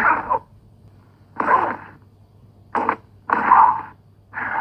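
A person's voice in four short, separate bursts, thin and narrow in range like an old film or archive recording.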